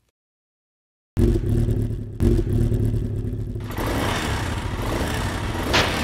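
Motorcycle engine sound effect: it starts abruptly about a second in and runs with a fast low pulse, then revs up louder from a little past the middle as the bike pulls away.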